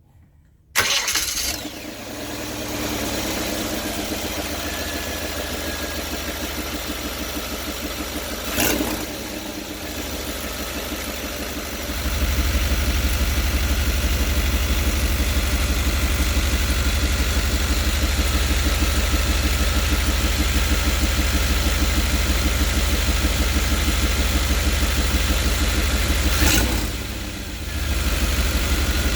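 A 5.7-litre TBI V8 engine starts about a second in and keeps running, heard with the van's interior engine cover removed. It gets louder at about 12 seconds and dips briefly near the end. The owner says it runs louder than normal because of an exhaust leak somewhere in the engine compartment.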